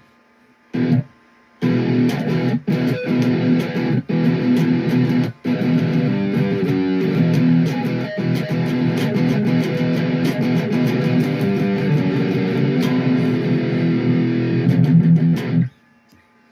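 ESP LTD H-51 electric guitar played through a Blackstar 40-watt amp: sustained chords that stop briefly twice in the first couple of seconds, then ring on without a break until they cut off sharply near the end.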